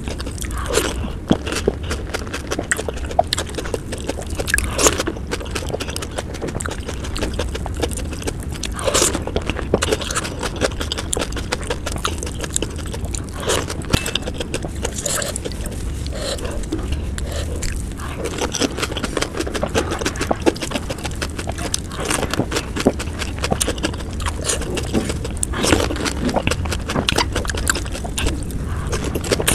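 Close-up eating of panipuri: crisp hollow puri shells filled with spiced water crunching and being chewed wetly, one after another, a dense run of crackles and mouth sounds sped up to double speed.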